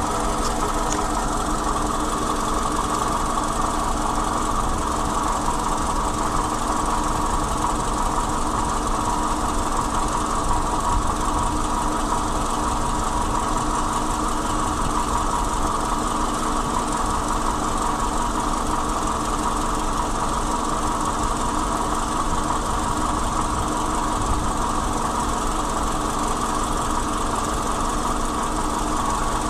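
Toyota Camry four-cylinder petrol engine idling steadily.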